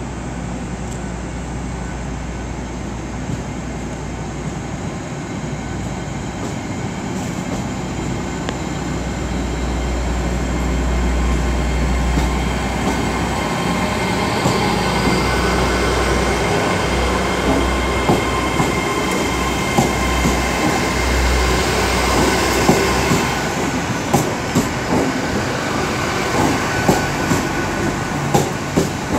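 A Class 800 IET bi-mode train moves off slowly on its underfloor diesel engines, with a steady low hum that grows louder partway through. In the later part, its wheels click over rail joints at an irregular, quickening rate.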